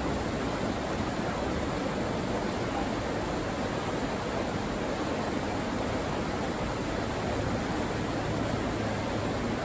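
River rapids rushing steadily over rocks around wading anglers' legs: a constant, even rush of whitewater.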